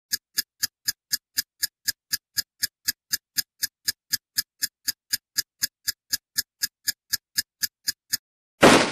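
Title-sequence sound effect: a steady ticking, about four ticks a second, as the letters appear. It stops, and near the end a single loud gunshot sound effect goes off and rings away.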